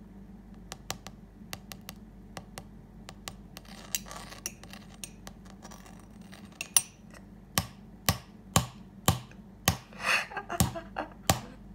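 Metal teaspoon tapping on the caramelized sugar top of a crème brûlée in a ceramic ramekin. Light ticks at first, with a little scraping, then sharper, louder taps about twice a second near the end.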